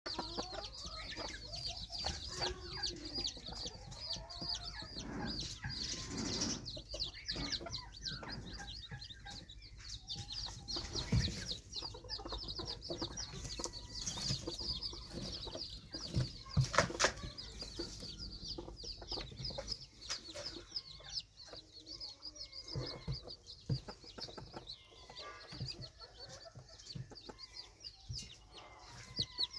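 Red junglefowl chicks peeping, a rapid, continuous stream of high-pitched calls, with lower clucking mixed in during the first few seconds. A few sharp taps stand out about eleven and seventeen seconds in.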